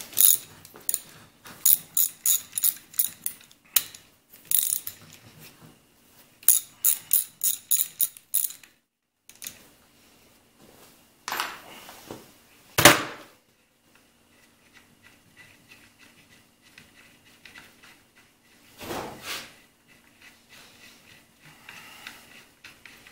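Socket ratchet clicking in several quick runs as it backs out the 5/8-inch bolts holding the oil pan onto a Clinton small engine. A single loud knock comes about halfway through.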